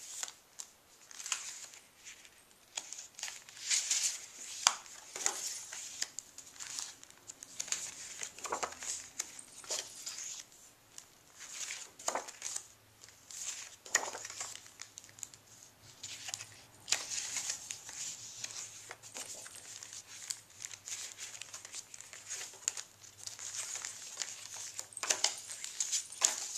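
Paper recipe cards and envelopes being handled and shuffled by hand: irregular rustling and crinkling in short bursts.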